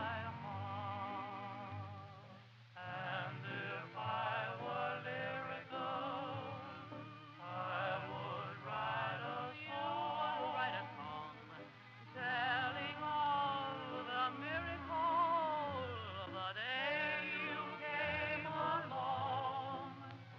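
Background music: a singer with heavy vibrato over instrumental accompaniment, in phrases separated by short breaths.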